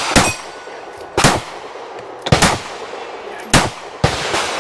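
9mm pistol fired shot by shot at a steady pace, about one shot a second, five shots in all, each a sharp crack with a short ring after it.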